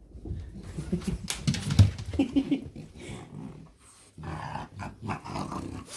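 French bulldog's own noises: short low grunts and noisy, breathy snuffling, mixed with scattered knocks and scuffles.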